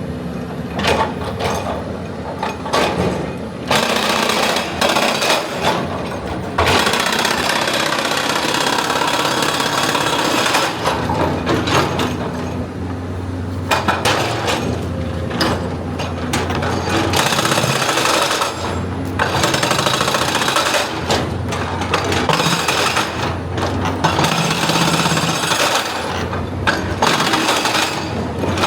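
Excavator's diesel engine running under a hydraulic breaker hammering rock in bursts of rapid blows a few seconds long, with short breaks between them.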